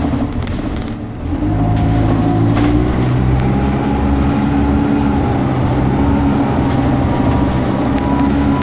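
Dennis Dart SLF single-deck bus under way, heard from inside the saloon: its diesel engine and drivetrain give a steady low drone over road noise. The drone dips briefly about a second in, then picks up again and holds steady.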